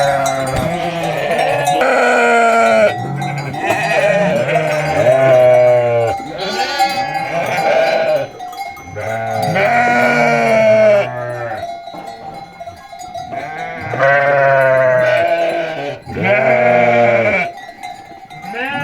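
A flock of sheep bleating, many calls overlapping one after another, with livestock bells clanking among them.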